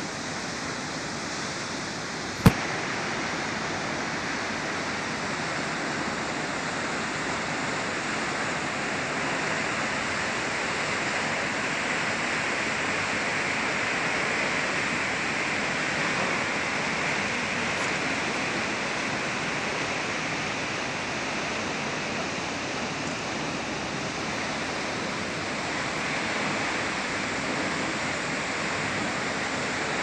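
Kegon Falls, a tall waterfall, plunging down its cliff: a steady, even rush of falling water. A single sharp click about two and a half seconds in.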